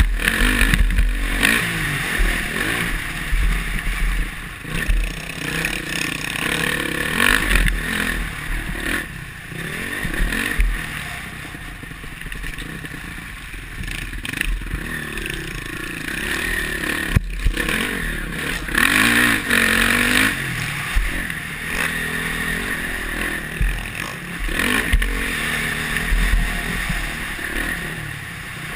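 Honda CRF450R's single-cylinder four-stroke motocross engine, revving up and down as the bike is ridden hard around a dirt track. Heard from a helmet-mounted camera, with rumbling wind on the microphone, clatter over the bumps and a sharp knock about two-thirds of the way through.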